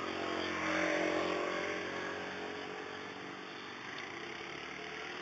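A motorbike passing by on the street: its engine swells, peaks about a second in and fades as it goes, its pitch sliding down. A steady low street hum continues underneath.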